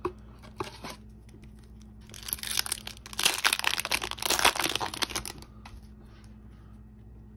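A foil trading-card pack wrapper is torn open and crinkled in the hands. There is a crackling tear lasting about three seconds, with a few light handling clicks before it.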